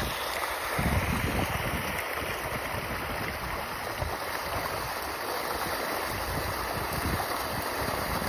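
A dense shoal of farmed pond fish thrashing at the water surface as they snatch thrown feed: a continuous churning splash. Wind buffets the microphone.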